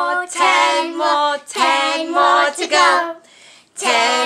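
A woman and girls singing together unaccompanied, a few phrases of long held notes, with a short break about three and a half seconds in.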